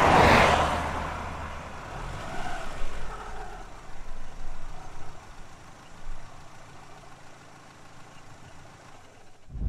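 Road traffic: vehicle engines running, with a loud whoosh at the start that fades within about a second, then quieter traffic rumble that drops away just before the end.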